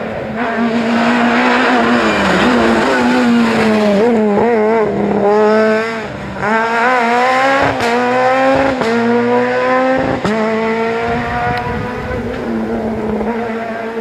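Rally car's engine under hard acceleration, the pitch climbing through each gear and dropping sharply at quick upshifts, with a short crack at several of the shifts.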